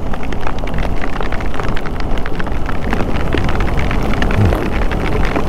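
Rain hitting a motorcyclist's helmet-mounted microphone: many sharp, irregular drop ticks over a steady low rumble of wind and motorcycle.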